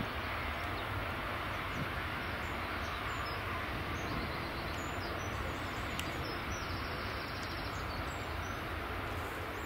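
Jet aircraft engines at a distance: a steady, even rushing rumble that neither rises nor fades.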